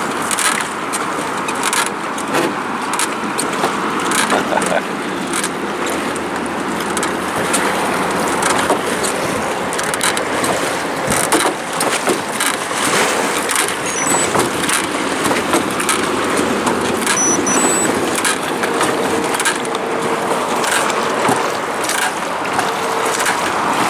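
Drift boat being rowed: steady rushing and lapping of river water along the hull, with the oars splashing and frequent short knocks as they work in their oarlocks.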